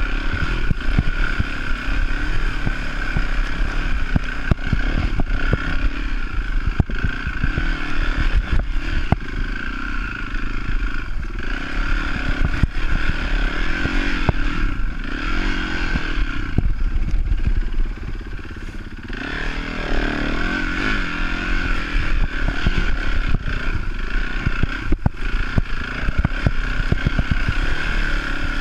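Yamaha enduro motorbike engine running hard and revving up and down as the bike is ridden through mud and ruts, with clatter from the bike over the rough ground. The engine eases off briefly about two-thirds of the way through, then picks up again.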